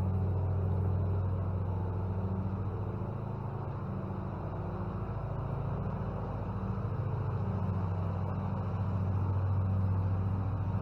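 A low, steady engine hum with a slight flutter, unchanging throughout.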